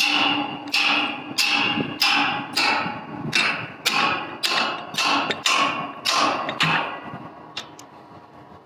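Pipe wrench clanking against a rusty steel gooseneck fitting on a center-pivot pipe as it is jerked to break the fitting loose: about ten metallic knocks, roughly one every two-thirds of a second, each ringing briefly, stopping about a second and a half before the end. The wrench's adjusting screw is not yet tightened, so the wrench is slipping.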